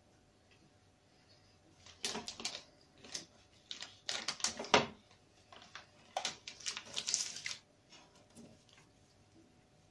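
Chocolate bar's foil wrapper crinkling as it is handled, in four crackly bursts with quiet gaps between them.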